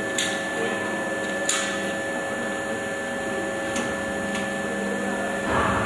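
Extrusion blow molding machine running: a steady machine hum with a constant whine, broken by a few short, sharp sounds.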